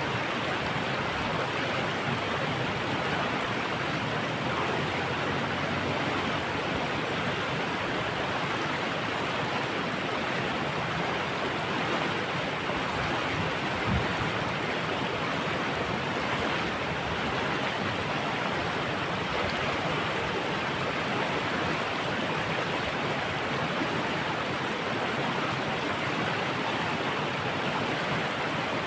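Flowing water rushing steadily with an even, unbroken sound. About halfway there is one brief low thump.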